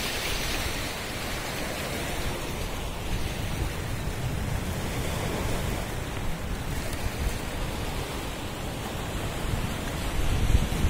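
Sea waves breaking and washing over rocks along the shore, a steady surf noise, with wind rumbling on the microphone, most strongly near the end.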